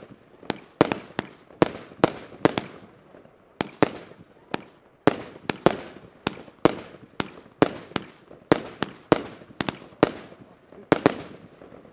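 Consumer firework battery firing aerial shots in quick succession: a rapid string of sharp bangs, about two a second and often in close pairs, each with a short echoing tail, stopping about eleven seconds in.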